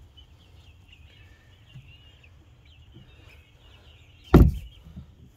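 Young chickens peeping and chirping faintly inside a wooden coop, with one loud sharp thump about four seconds in.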